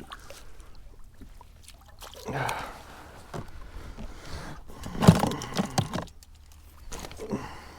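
Intermittent water splashing and handling noises as a hooked stingray is brought in, with the loudest, sharpest burst about five seconds in.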